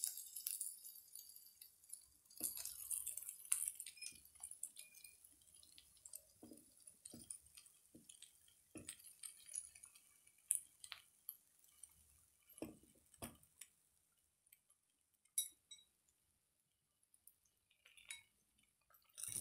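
Faint, scattered clinks and soft taps as fried gluten puffs are tipped from bowls into a cooking pot, the bowls knocking lightly against the pot and each other.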